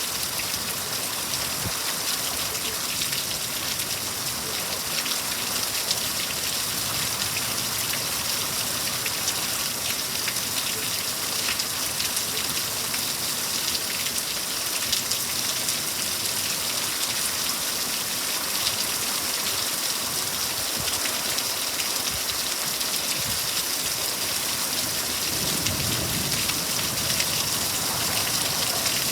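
Heavy thunderstorm rain falling steadily, a dense hiss peppered with countless fine drop ticks. A brief low rumble comes in near the end.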